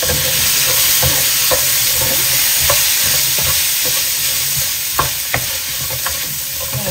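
Chicken pieces sizzling in hot oil in a nonstick wok as a spatula stirs them: a steady frying hiss with scattered clacks and scrapes of the spatula against the pan. The two sharpest clacks come about five seconds in.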